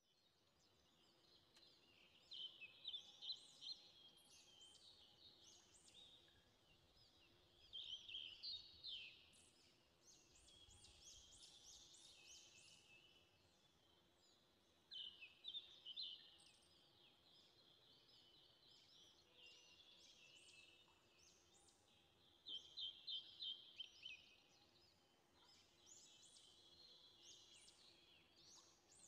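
Faint birdsong: bursts of rapid, high chirps about every six or seven seconds, with softer twittering between them.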